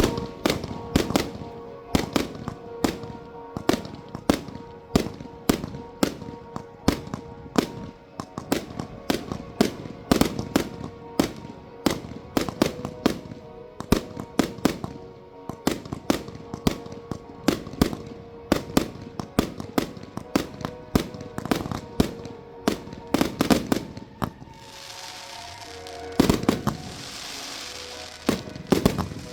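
Fireworks display: a rapid barrage of loud bangs, several a second, easing off about 24 seconds in, then fizzing crackle and a few more big bangs near the end.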